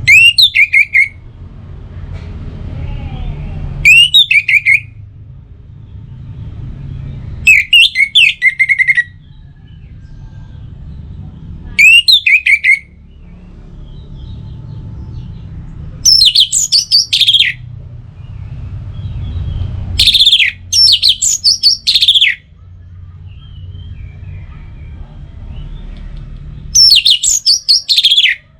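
Orange-headed thrush singing: seven short phrases of quick, high, sweeping notes, each about a second long and coming about every four seconds. A low rumble fills the gaps between phrases.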